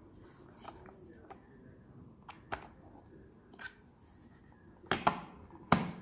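Handling clicks of a precision screwdriver set: the screwdriver handle is drawn out of its bit tray with a few scattered light clicks, then two louder knocks near the end as the tray is set down on the table.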